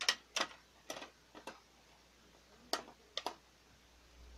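Irregular sharp clicks of a hand screwdriver working a small screw into a printer's plastic chassis, some coming in quick pairs.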